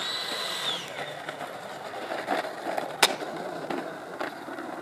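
FMS F-16 RC jet's 80mm electric ducted fan whining, then dropping in pitch just under a second in. Its small landing-gear wheels rumble over paved runway throughout, with one sharp click about three seconds in.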